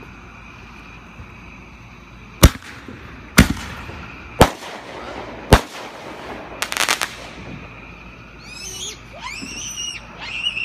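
Fireworks going off: four sharp, loud bangs about a second apart, followed by a quick rattling cluster of crackles.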